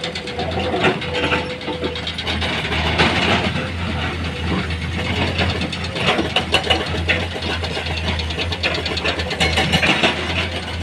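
Heavy-equipment diesel engine running steadily, with many short knocks and clatters over it.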